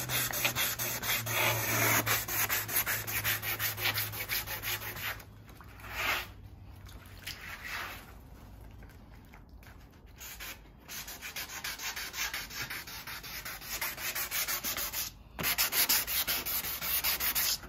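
Hand sanding with 400-grit sandpaper on a primed windsurf board: quick back-and-forth strokes at about four a second, easing off into a quieter stretch in the middle and then picking up again. The sanding blends in the edge of the primer coat and flattens the primer before painting.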